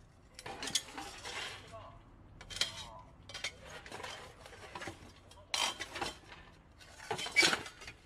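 Steel tongs clinking and scraping against a small steel stove canister and its metal tray as the stove is lifted apart, with charred wood pellets rattling. It comes in several separate clattering bursts, the loudest near the end.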